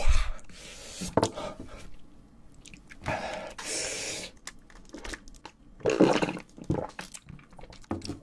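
Close-miked mukbang eating sounds: mouth noises from spicy fire noodles, sharp breaths against the heat, and sips from a glass of cola, coming in separate bursts.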